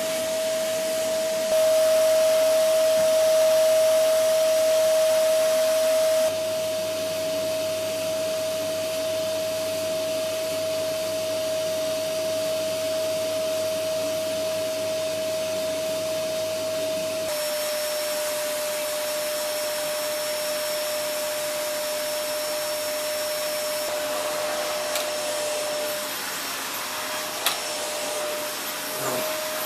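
Vacuum cleaner running with a steady whine over its rushing air. Its loudness and tone shift abruptly a few times as it is worked over a cat's fur, and a couple of short clicks come near the end.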